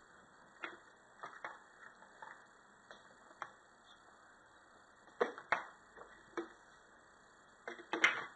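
Scattered light clicks and taps of small regulator parts and tools being handled during reassembly, with a few sharper knocks about five seconds in and the loudest cluster near the end.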